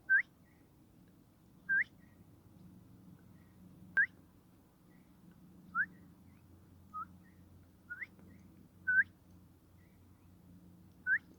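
A bird giving short rising whistled calls, about eight in all, one every one to two seconds, each followed by a fainter short note. Underneath is a faint, steady low rumble.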